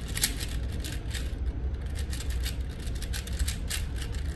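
Quick, irregular plastic clicks and clacks of a 4x4 Rubik's cube's layers being turned during a speed solve, several a second, over a steady low hum.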